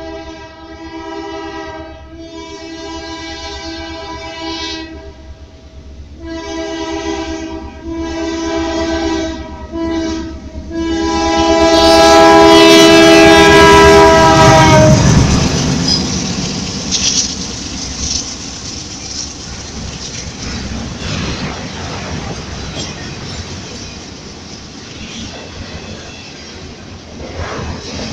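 Freight locomotive's multi-chime air horn sounding a series of long blasts with one short blast, loudest about 12 seconds in, its pitch dropping as the locomotive passes. Then the train's wagons roll by with a rumble and wheel clickety-clack.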